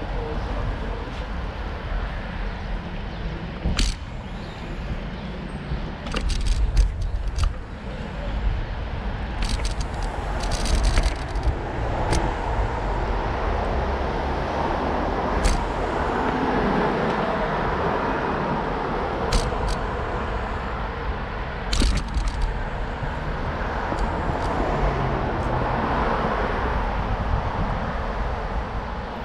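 Outdoor street noise: a steady rumble of traffic and road noise, with scattered sharp clicks and knocks.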